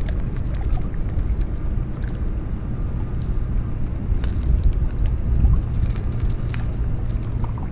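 Light metallic clicks and jingles of a crankbait's treble hooks and split rings as fishing pliers work the lure out of a bass's mouth. A steady low rumble runs underneath and is the loudest part.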